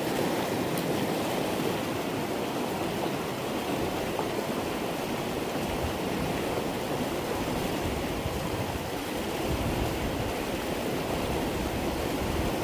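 Whitewater rushing steadily over a low stone spillway dam on a stream.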